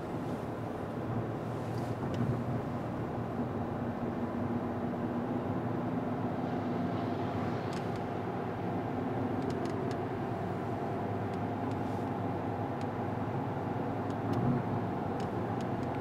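Car engine and tyre noise heard from inside the cabin while driving at a steady cruise, a low even hum under a haze of road noise.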